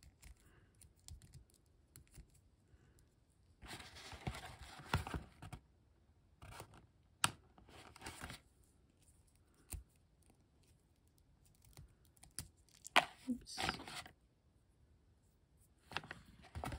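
Small hard-plastic toy parts being handled and fitted together: scattered sharp clicks and taps, with a few short bursts of crinkly plastic rustling, the longest about four seconds in and another about thirteen seconds in.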